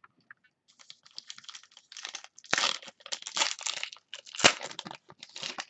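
Crinkly plastic wrapping around trading cards being handled, rustling and crackling unevenly, with one sharp snap about four and a half seconds in.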